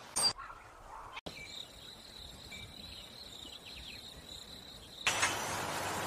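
Spliced nature sound recordings: a steady high-pitched trill with faint chirps over it, broken off abruptly, then a loud hissing burst about a second long near the end.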